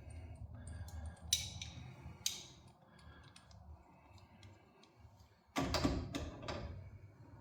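Handling noises: scattered light clicks and taps over a low hum, then a louder burst of clattering and rustling about five and a half seconds in that fades over a second.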